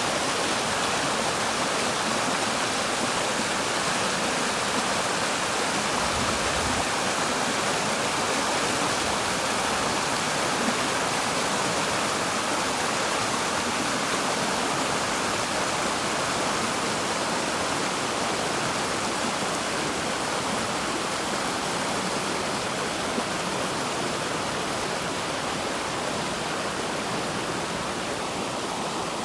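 River water flowing steadily, an even, unbroken sound of moving water.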